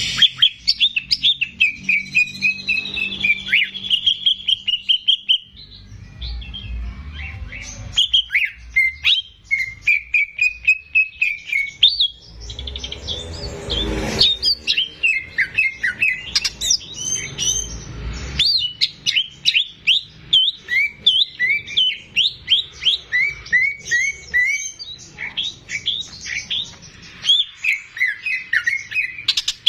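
Cucak ijo (green leafbird) singing continuously: fast runs of sharp chirps and whistled notes, many sliding up or down, with brief pauses between phrases. A low rumble sits under the song for a few seconds around the middle.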